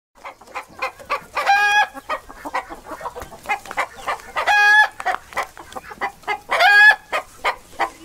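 Hen cackling: a rapid run of short clucks broken by three longer, drawn-out calls, about a second and a half in, about halfway through, and near the end.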